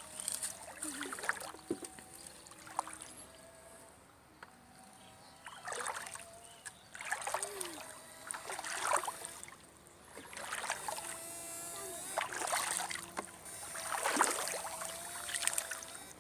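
Water swishing and splashing in repeated strokes, one every second or two, each lasting under a second, as if something is being pushed or swept through shallow water.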